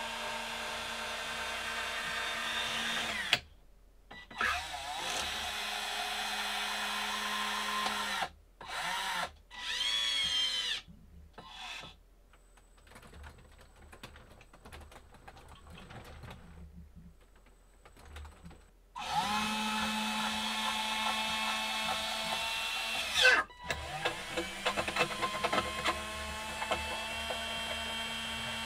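12 V DC gear motors driving the T8 lead-screw actuators of a 3D-printed RC excavator's arm, boom and bucket, still ungreased. They whine in runs of a few seconds, each starting and stopping with a brief rise or fall in pitch, with a quieter stretch in the middle.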